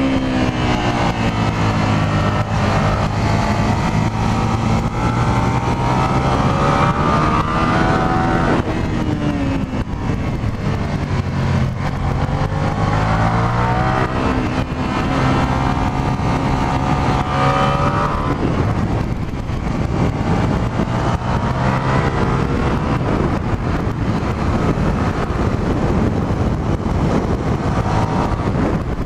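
A 2003 Suzuki SV650S's 645 cc V-twin engine, heard from inside the rider's helmet with wind rush: the note climbs under acceleration for several seconds, then falls away as the bike slows for the next corner, about three times over.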